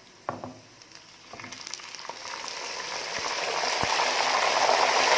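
Tomatoes going into hot oil with browned onions, setting off a frying sizzle that starts about a second and a half in and grows steadily louder. A few light clicks come before the sizzle builds.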